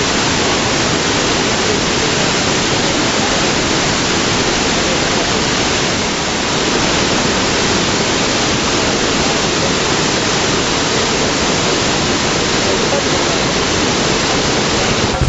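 Iguazú Falls, heavy water falling in a loud, steady rush of noise.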